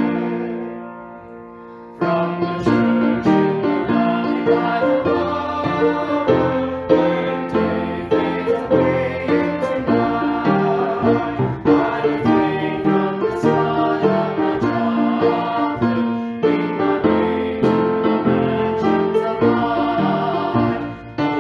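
Piano music: a held chord dies away over the first two seconds, then playing starts again suddenly and goes on steadily.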